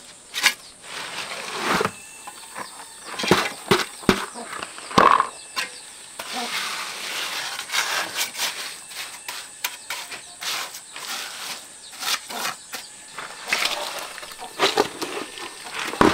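Steel trowel scraping and scooping wet cement mortar and knocking against red bricks, in irregular scrapes and sharp taps. A steady high insect drone runs behind.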